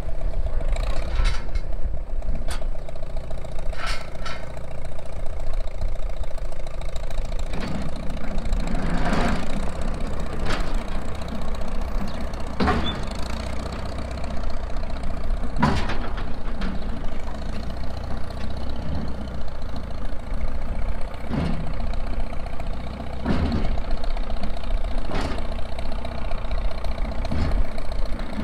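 An engine running steadily as the non-running Farmall H is towed over rough ground, with a sharp metal clank from the tractor every few seconds. Wind rumbles on the microphone.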